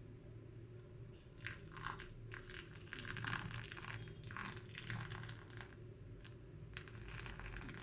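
Hot water poured from a kettle onto freshly ground coffee in a V60 dripper to start the bloom, a soft uneven splashing and crackling. It begins about a second and a half in, pauses briefly, and resumes near the end.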